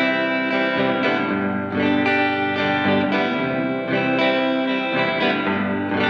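Electric guitar played through a Fender Reflecting Pool delay and reverb pedal: notes and chords struck about once a second, each ringing on and blending into the next in a wash of echoes and reverb.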